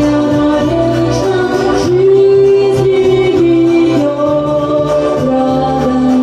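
Karaoke cover of a 1990s Russian pop song: a singer holds long notes over the backing track.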